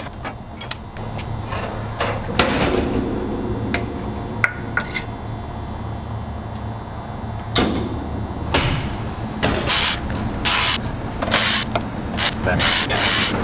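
Cordless electric ratchet spinning in short runs on a forklift drive motor's bolts, with metal tool clinks in between; the runs come repeatedly in the second half.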